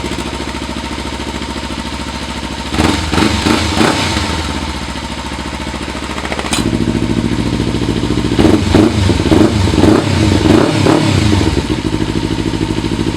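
Kawasaki Ninja 300's parallel-twin engine through an Akrapovic carbon slip-on exhaust with its baffle fitted, idling and then revved in short throttle blips, a few about three seconds in and a longer run of them from about eight to twelve seconds in. A single sharp click comes between the two sets of revs.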